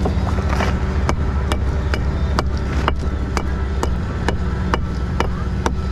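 A hammer striking stone in a steady rhythm, about two blows a second, dressing a building stone by knocking lumps off its edges. A steady low hum of running machinery underneath.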